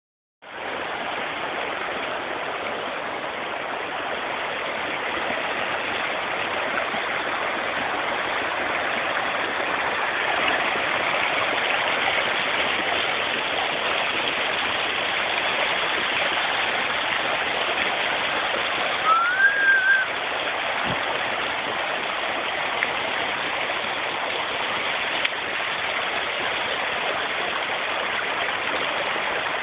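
Steady rush of shallow water running over white travertine terraces. About two-thirds of the way through comes a short, high rising tone.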